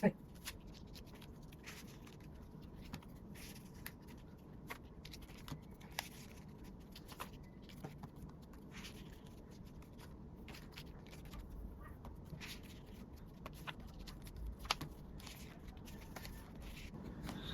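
Soft, scattered clicks and rustles of photocards and plastic binder sleeves being handled, over a low room hum.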